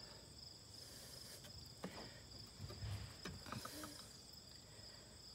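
Crickets chirping steadily in the background, with a few faint taps and clicks from hands working at a mower wheel's hub and axle.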